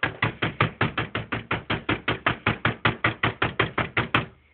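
A hand hitting an Xbox 360 console in a quick, even run of about two dozen knocks, roughly six a second, stopping near the end. This is the home fix for the console's 'open tray' error, jolting the disc drive until it reads the disc.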